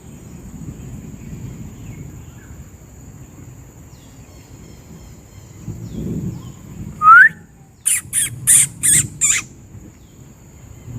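Sharp animal calls: a single short rising call about seven seconds in, then five harsh calls in quick succession.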